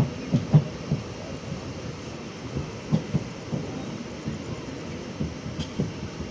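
Moving train running on the track: a steady rumble with irregular low knocks from the wheels on the rails.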